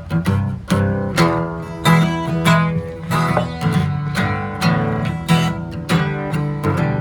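Acoustic guitar playing a Texas blues: a steady bass note struck about every half second under picked treble notes, with no voice.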